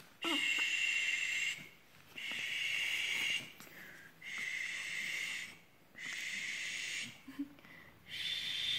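A person making long, repeated "sss"/"shh" hissing sounds, five in a row with short pauses between: the hissing cue used to coax a baby to poop.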